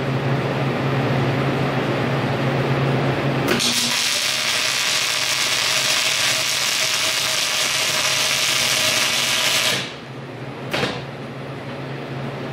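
Wire-feed (MIG) welder arc crackling and hissing steadily for about six seconds as a bead is run on clamped steel plate, starting about three and a half seconds in and stopping abruptly, followed by one short burst of arc about a second later. Before the arc strikes there is a steady low hum.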